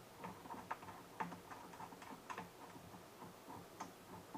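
Faint, irregular small clicks and taps of metal screws and chair hardware being handled during assembly.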